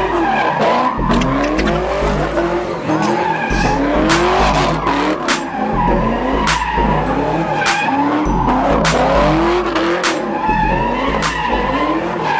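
Chevrolet Camaro doing donuts: the engine revs up again and again while the rear tyres squeal and skid on the asphalt. Several sharp cracks stand out here and there.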